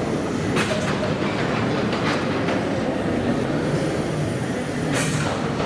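Victorian James Watt & Co. steam beam engine running, a steady mechanical clatter and rumble from its rods, valve gear and pumps. A few sharper noises stand out: about half a second in, around two seconds, and near the end.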